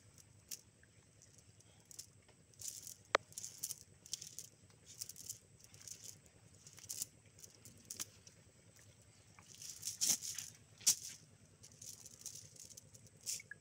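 Cast net being handled and shaken out by hand: irregular rustling and rattling of the mesh and its beaded sinker weights, with two sharp clicks.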